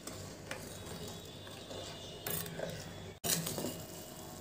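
Steel ladle stirring sugar syrup in a steel pot on the stove, scraping and clinking against the metal as the syrup heats up.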